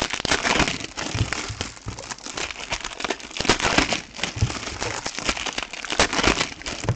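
Foil wrappers of Topps Chrome trading-card packs crinkling and crackling as they are torn open and crumpled by hand. It is a dense run of small crackles that stops near the end.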